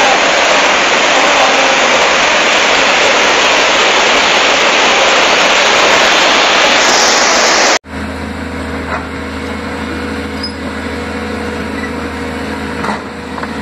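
Loud, steady rushing roar of a fast-flowing flood river, which cuts off abruptly about eight seconds in. Then a Sany crawler excavator's diesel engine runs with a steady low hum while the machine climbs over rubble, with a few knocks near the end.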